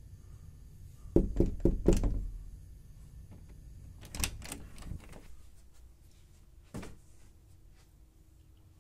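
Knocks and thumps of a camera or phone being handled and moved: a quick run of about five sharp thumps a little after a second in, a few more around four seconds, and a single knock near seven seconds, with quiet room tone between.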